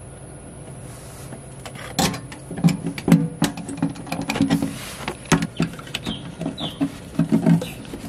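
Irregular clicks, knocks and rattles of hands fitting the flex hose and hose clamp onto a van's grey water tank from underneath. They start about two seconds in, after a low steady background.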